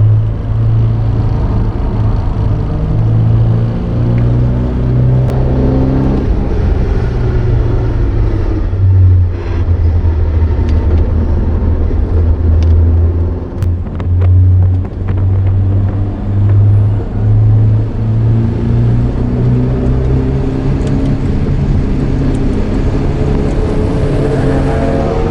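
Porsche 924's 2.0-litre inline-four engine heard from inside the race car at speed, its note rising and falling repeatedly as it revs up through the gears and eases off for corners, rising again near the end.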